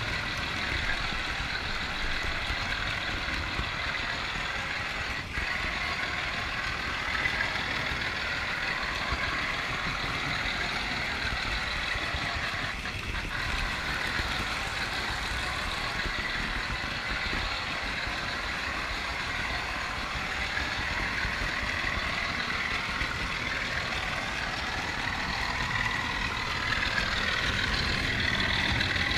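Model train running on its track, heard from a camera riding aboard an open wagon: a steady rumble and whine of the wheels on the rails, with an occasional click.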